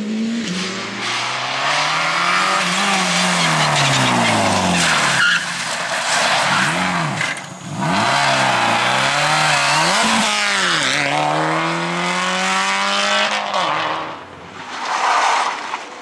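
Rally car engines at full attack on a tarmac stage, revving hard with pitch rising and falling through gear changes and lifts. First a Škoda Fabia R5 pulls away out of earshot. Then a Subaru Impreza rally car brakes into a hairpin and powers back out, its revs dropping and then climbing again.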